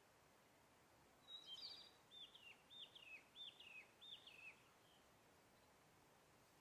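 A songbird sings one short song: a brief high note, then four repeated falling phrases about half a second apart, over faint background hiss.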